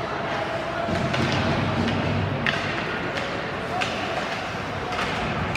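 Ice rink ambience during hockey play: a murmur of spectators' voices over a steady hum, with several sharp clacks of sticks and puck on the ice, the loudest about two and a half seconds in.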